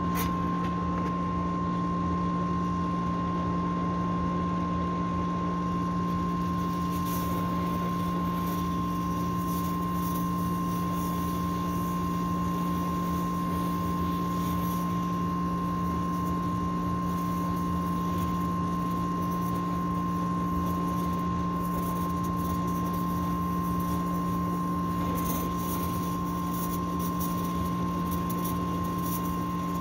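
Gas brazing torch burning steadily with an even hiss while copper refrigerant lines on a replacement air-conditioner compressor are heated, over a constant machine hum with a thin high whine.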